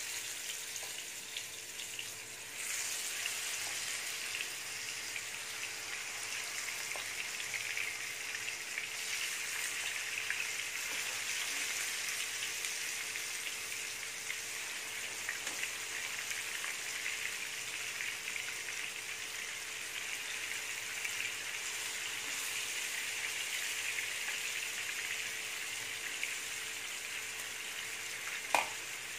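Slices of marinated fish sizzling steadily as they shallow-fry in hot oil in a pan, the sizzle growing louder a couple of seconds in as more slices go in. A faint steady hum runs underneath, and there is a light tap near the end.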